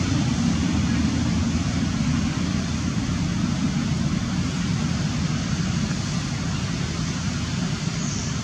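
Steady low rumble with a fainter even hiss above it: outdoor background noise.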